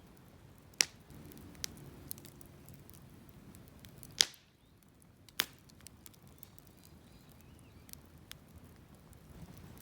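Wood fire crackling in a fire pit, with scattered small ticks and a few sharp pops, the loudest about four seconds in.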